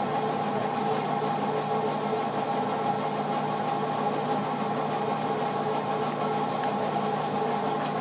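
A steady machine hum holding a few fixed tones, with faint light ticks here and there.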